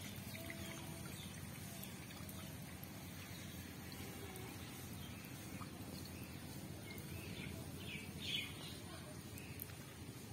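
Quiet outdoor background noise with a few short bird chirps about three-quarters of the way through, the loudest near the end.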